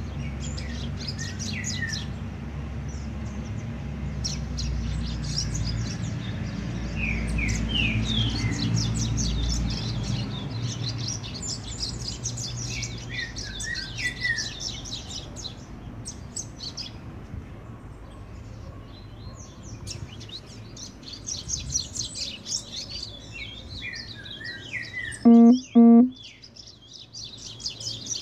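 Double-collared seedeaters (coleiros) singing in their cages: fast high twittering chirps with short downward-sliding notes, a song still being learned and polished. Two loud short buzzy horn-like blasts cut in about three seconds before the end, over a low rumble in the first half.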